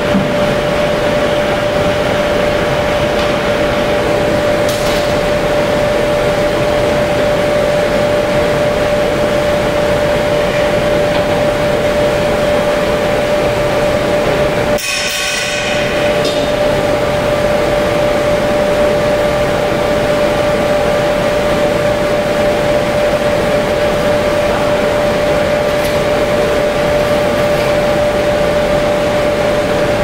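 Gas-fired crucible furnace running at full fire: a steady burner roar with a constant hum from the combustion-air blower, dipping briefly about halfway through.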